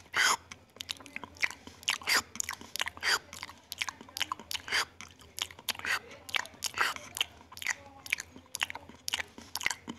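Close-up chewing of a macaque eating rice and stir-fried water spinach (oseng kangkung): irregular mouth smacks and crunches, about two a second.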